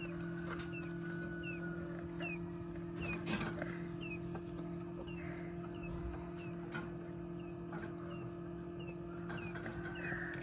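Coturnix quail chicks peeping during hatching: a steady run of short, high, falling peeps, about two to three a second. They sit over a steady low hum and a few scattered clicks.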